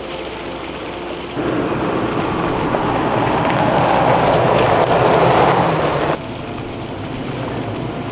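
Loud, even rush of a shallow mountain stream close to the microphone. It starts abruptly about a second and a half in and cuts off suddenly about six seconds in.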